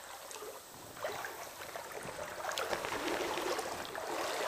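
Water sloshing and splashing around chest waders as an angler wades through a shallow, rocky creek, getting louder about a second in.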